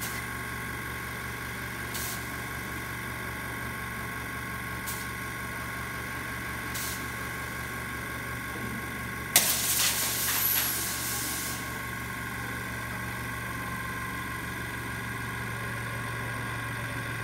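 Air compressor running with a steady hum, supplying compressed air through a hose to a Theo Jansen strandbeest. About nine seconds in, a sudden loud hiss of escaping compressed air lasts about two seconds, and a few faint clicks come before it.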